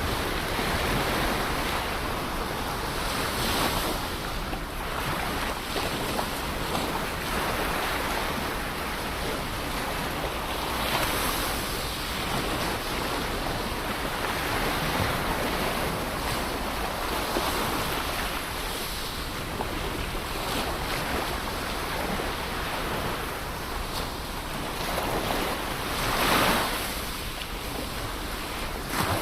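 Ocean waves breaking and washing on the shore, a continuous rushing surf that swells and ebbs every few seconds, with one louder surge near the end.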